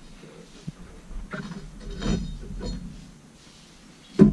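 CVT drive belt being worked off the clutch sheaves of a Can-Am Renegade by hand: scattered clicks and rubbing of belt and metal, with a louder knock near the end.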